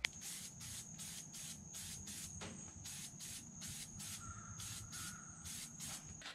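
Aerosol can of contact cement spraying: a faint hiss that comes in quick, even pulses about three times a second.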